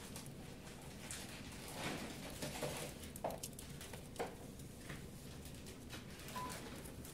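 Faint, irregular wet clicking and smacking of a newborn Yorkshire terrier puppy suckling milk from a feeding syringe, with a few brief squeaks.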